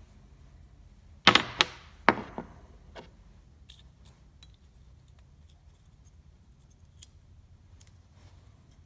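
Sharp metallic clinks and clatter as a steel bearing insert, with a thin shim behind it, is handled and pressed into a Shibaura S753 diesel's main bearing cap. A cluster of clinks comes a little over a second in, more follow around two seconds and three seconds in, and after that only faint light ticks.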